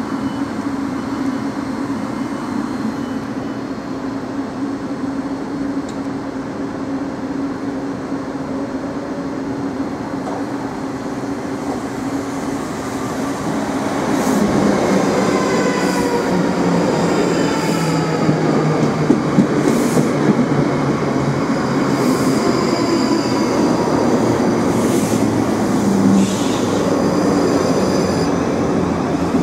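South Western Railway electric trains: a Class 707 hums steadily on the far track. About halfway through, a Class 458 runs in along the near platform and brakes, its traction motors whining down in pitch and its wheels clicking over rail joints at lengthening intervals as it slows.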